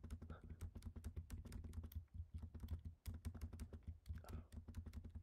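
Computer keyboard keys pressed in rapid, repeated taps, a dense run of quick clicks, over a low steady hum.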